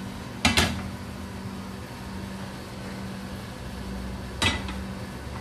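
A steady low hum, with two short sharp knocks, one about half a second in and one near the end.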